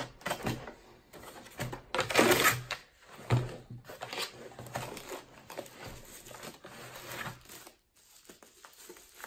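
Cardboard and bubble-wrap packaging rustling and crinkling as items are handled and pulled out of a shipping box, in irregular bursts with the loudest rustle about two seconds in.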